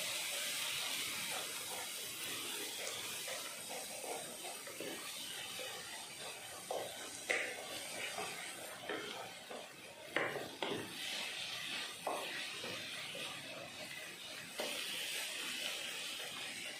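Egg and onion-tomato masala frying in a pan with a steady sizzling hiss, while a wooden spatula stirs and scrapes through it, with short scrapes and taps now and then.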